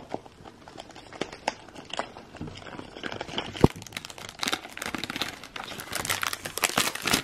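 Clear plastic cellophane wrap crinkling and crackling as fingers peel it off a small box. The crackle grows busier from about three seconds in, with one sharp snap near the middle.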